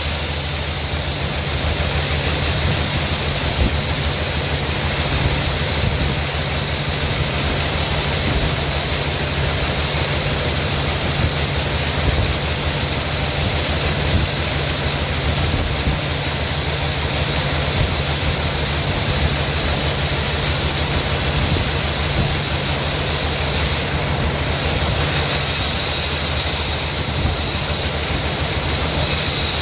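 Sawmill machinery running steadily, a low motor hum under a continuous high-pitched whine, with a hissier edge coming in near the end.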